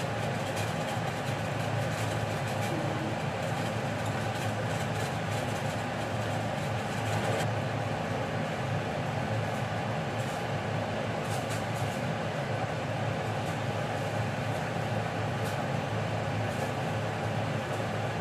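Steady mechanical hum and hiss from a running appliance, with faint scattered taps and scrapes of a knife cutting through soft espasol in a plastic container.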